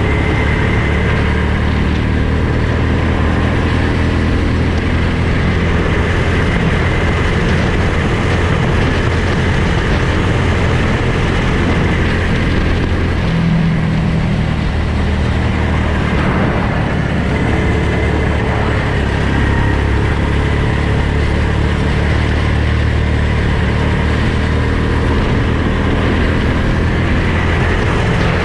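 Go-kart engine running steadily under power, its pitch shifting a little as the throttle changes.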